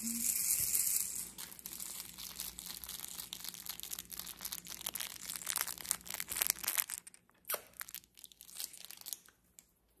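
Plush baby rattle with a clear plastic bead ring shaken and handled close to the microphone: beads rattling in fast, dense clicks, dropping to a few separate shakes about seven seconds in and stopping shortly after nine seconds.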